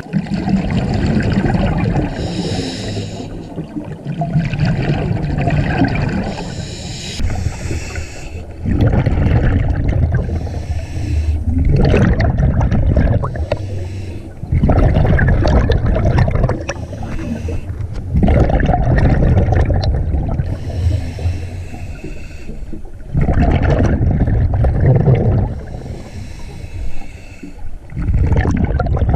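Scuba regulator breathing underwater: a hissing inhale through the demand valve, then a burst of exhaled bubbles gurgling out, repeating every few seconds.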